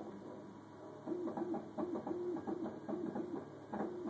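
Stratasys uPrint 3D printer's print-head motors running through a rapid series of short moves while printing. After a low steady hum, from about a second in comes a quick run of brief whirs that rise and fall in pitch, with light clicks between them.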